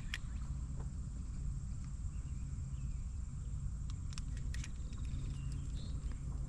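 Outdoor pond ambience: a steady low rumble under a thin, steady high-pitched insect drone, with a few small clicks about four seconds in.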